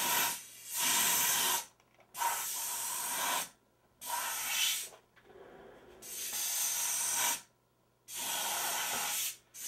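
Canned compressed-air duster blowing through its straw in a series of about six hissing blasts, each a second or so long with short pauses between, clearing dust from the edge of the CRT's safety glass.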